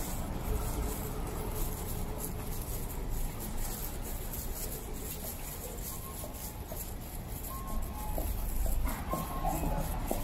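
Rainy city street ambience: a steady low rumble of traffic with a wet hiss. From about six seconds in, thin tones of music or an electronic chime join in, busier near the end.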